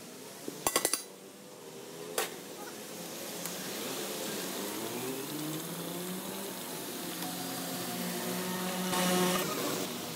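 A large aluminium cooking pot and its metal lid clank a few times about a second in, with a single knock shortly after. Then comes a steady hiss, as steam rises from the freshly opened pot, with indistinct voices behind it.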